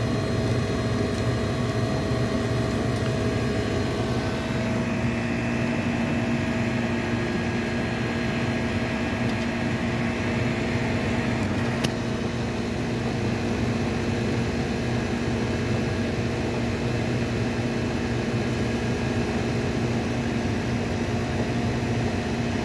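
R22 air-conditioning condensing unit running steadily, its compressor and condenser fan making a constant humming drone with a few held tones, while the system runs with manifold gauges connected. A single short click about halfway through.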